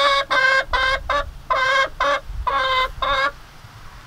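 A hen cackling loudly. A long call tails off at the start, then a run of about seven short calls stops a little over three seconds in.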